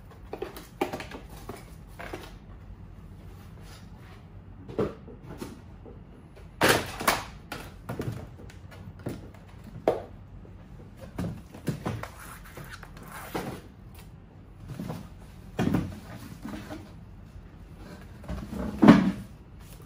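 A cardboard product box and wooden hedgehog houses being handled and set down on a table: irregular knocks, scrapes and thumps, the loudest near the end.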